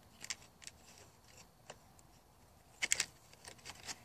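Vinyl J channel pieces clicking and scraping as they are pushed and fitted together by hand, with a quick cluster of sharp clicks about three seconds in.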